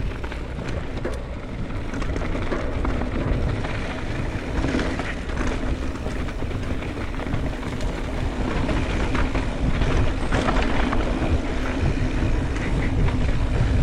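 Mountain bike ridden down a dirt trail: a steady rush of wind and tyre noise with low rumble, and scattered clicks and rattles from the bike over the bumps.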